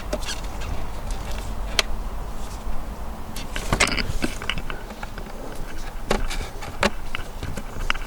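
Scattered clicks and knocks of hands working the plastic engine cover off a Skoda Octavia 1.8 turbo engine, over a steady low hum.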